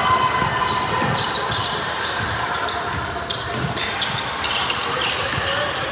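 Basketball play in a gym: a ball bouncing on the court floor and many short, high sneaker squeaks.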